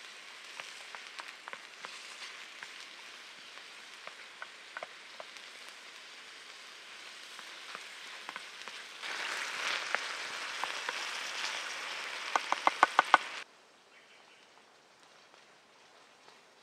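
Diced vegetables sizzling in a frying pan over a campfire, stirred with a wooden spoon that clicks against the pan now and then. The sizzle gets louder about nine seconds in, then a quick run of about seven taps of the spoon on the pan comes just before the sound cuts off suddenly.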